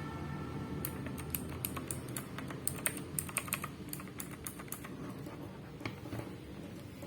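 Typing on a Fantech MK852 Max Core mechanical keyboard with clicky blue switches: a quick, uneven run of sharp key clicks that thins out toward the end.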